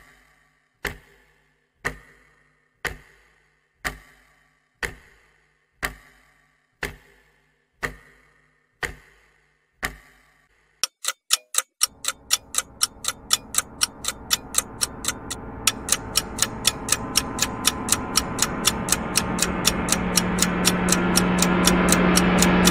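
Clock ticking, about once a second at first; about eleven seconds in, the ticking speeds up to about four ticks a second. A noise swells steadily louder under the fast ticking, and a low steady hum joins it near the end.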